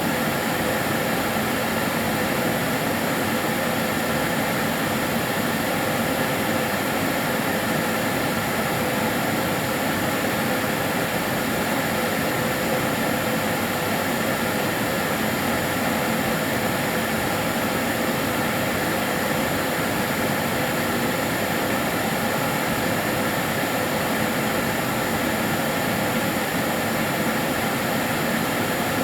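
Karcher DS 6 Premium water-filter vacuum cleaner running steadily: an even rush of air with a few constant whining tones in it, unchanging in level and pitch.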